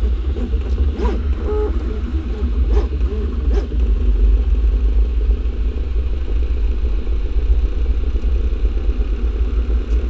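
Original Prusa i3 MK3S 3D printer printing, its X- and Y-axis stepper motors whirring and buzzing as the print head and bed move, over a steady low hum. A few short tones and light ticks come in the first few seconds, then the sound runs on evenly.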